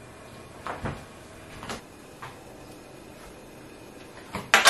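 Soft knocks of a stainless steel colander being handled in a plastic dish drainer, then near the end two sharp clinks of a metal teaspoon.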